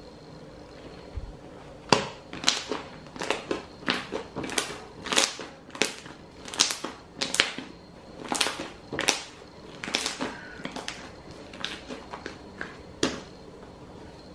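Homemade gray slime being squeezed, folded and pressed by hand, giving a run of sharp pops and crackles about twice a second as air pockets burst. The pops start about two seconds in and stop a little before the end.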